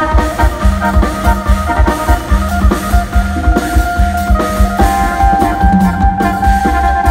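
Live Isan mor lam band music played loud through a PA: an electric phin picks a melody over electric bass and a steady drum-kit beat, with held reedy chords of a khaen.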